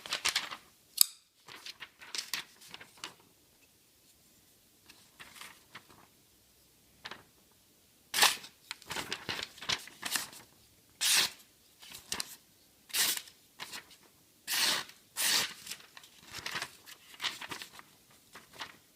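Thin 154CM steel blade of a Benchmade 531 folding knife slicing through paper in a sharpness test. Short, crisp cutting strokes: a sharp one about a second in, then a quiet stretch, then a run of strokes about once a second from about eight seconds on.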